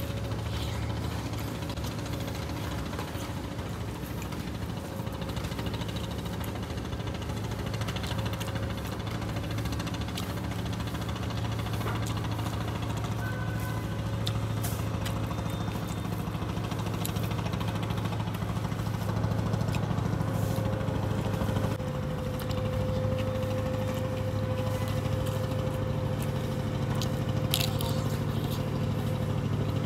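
A steady low motor hum, with small squishes and clicks of rice and curry being mixed by hand and eaten.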